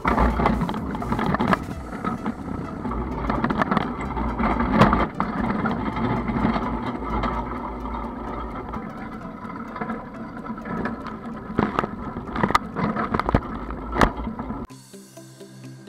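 Stubble cultivator's tines and roller churning through dry soil and stubble, a loud rushing and rumbling of earth with a number of sharp knocks of clods or stones against the steel frame, heard up close from a camera on the implement. About a second before the end it cuts off sharply and background music comes in.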